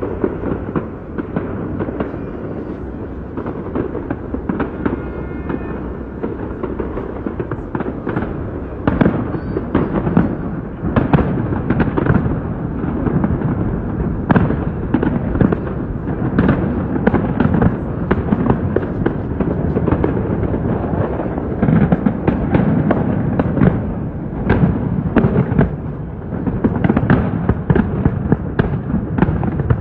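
Aerial fireworks display: shells bursting in a dense, unbroken string of bangs and crackles, several a second, with no pause.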